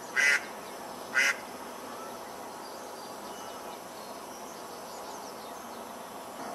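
Mallard quacking: two short, loud quacks about a second apart near the start, over steady background noise.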